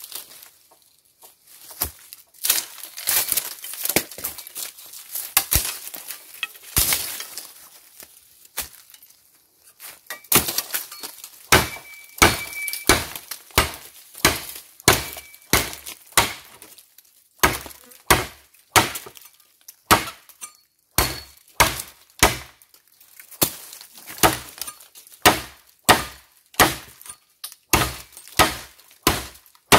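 Shovel blade chopping into bamboo culms: a long series of sharp strikes, scattered at first, then a steady run of about one and a half blows a second from about ten seconds in.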